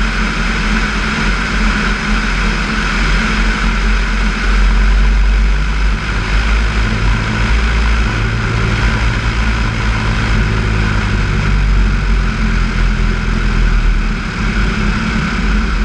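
Single-engine, high-wing light aircraft landing on a grass runway: the engine and propeller run steadily under heavy wind noise on the outside of the plane. About six seconds in a steady low hum sets in as the wheels come onto the grass, and the sound eases slightly near the end as the plane rolls out.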